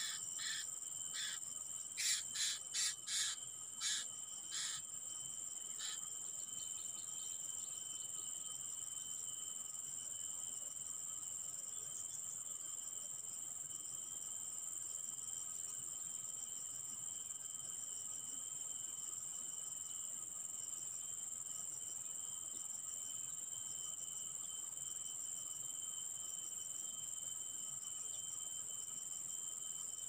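Steady insect chorus of crickets or similar, holding several high shrill tones throughout. Over the first few seconds, a string of about a dozen short, sharp chirps cuts across it, loudest between two and four seconds in.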